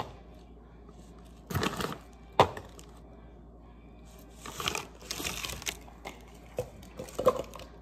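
Jackfruit chunks being handled in a glass bowl and tipped into a plastic blender cup: a few separate knocks and clicks, with a short rustling clatter about five seconds in.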